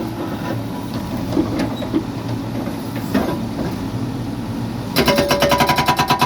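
CAT 416F2 backhoe loader's diesel engine running, with a few scattered knocks. About five seconds in, the Hsuntay ST69C hydraulic breaker starts hammering in a rapid, even rattle of blows.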